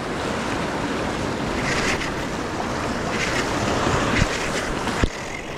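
Ocean surf washing and breaking, with wind buffeting the microphone. Two short knocks sound about four and five seconds in.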